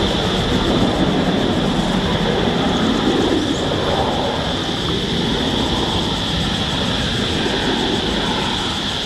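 A Gulfstream V's twin Rolls-Royce BR710 turbofans during the landing rollout: a steady high whine over a broad rumble, easing slightly about halfway through.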